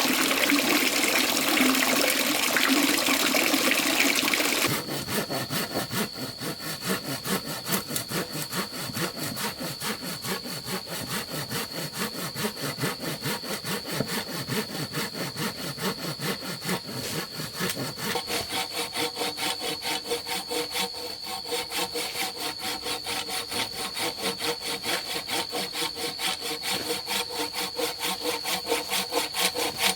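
Hand saw cutting bamboo in steady, repeated back-and-forth strokes. A rushing, water-like noise comes first and stops abruptly about five seconds in.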